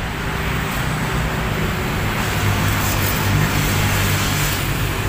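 Road traffic: a motor vehicle's engine running with a steady low hum over general road noise.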